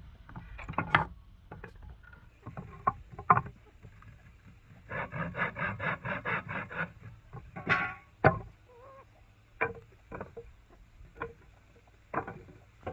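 Scattered knocks and clicks of hand work, with a quick even run of about a dozen strokes, about six a second, a little before the middle.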